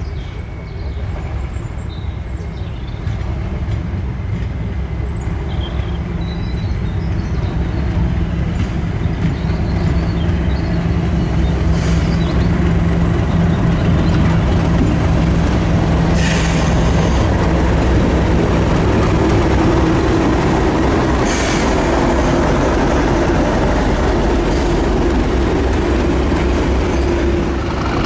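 Diesel train on a heritage railway, its engine sound growing louder over the first several seconds and then running steadily close by, with a few sharp clicks along the way.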